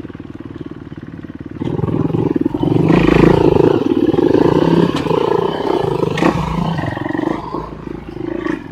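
Enduro dirt bike engine running hard under load, rising sharply about one and a half seconds in and staying loud, with a couple of sharp knocks partway through.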